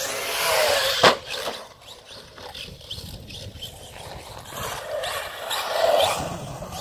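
Radio-controlled car landing hard on concrete with one sharp thud about a second in, then rolling on across the skatepark surface with its drivetrain whirring.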